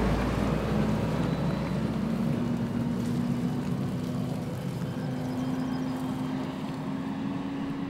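A heavy lorry towing a trailer passes close by and drives away. A deep rumble as it goes by gives way to a steady engine note that climbs a little as it pulls off and slowly fades.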